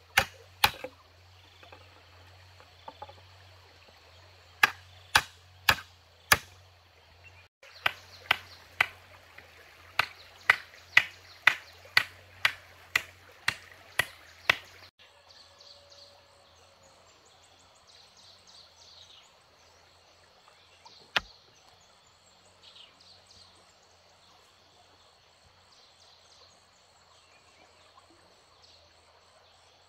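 Sharp blows of a hand tool on a wooden pole: a few strikes, then a run of about two blows a second that stops about 15 seconds in. After that there is a faint steady hiss with high chirping, and one more knock about 21 seconds in.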